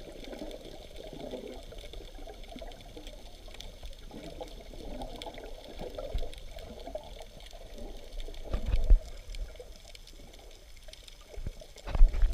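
Muffled underwater water sound recorded by a submerged camera: a steady sloshing and bubbling wash. Low thumps come about 9 s in and again near the end, as the camera nears the surface.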